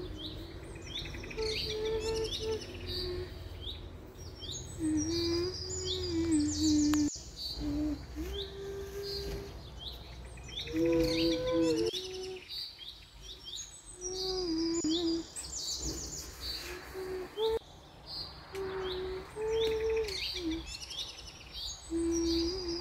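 Small birds chirping and trilling again and again. Underneath runs a low sustained tone that steps between a few pitches, each held for about a second.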